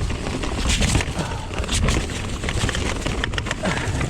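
Gusty wind buffeting the microphone in a heavy low rumble, with a mountain bike's frequent clicks and rattles as it rides over rough, rooty trail.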